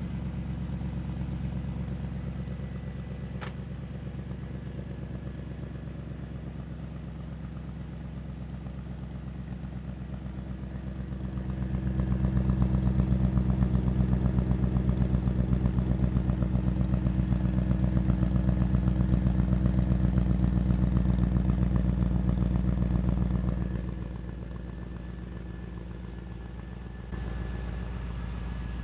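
4.8-litre LS V8 with 317 heads, swapped into an old Impala, running steadily just after a cold start. It gets noticeably louder for about twelve seconds in the middle, then settles back.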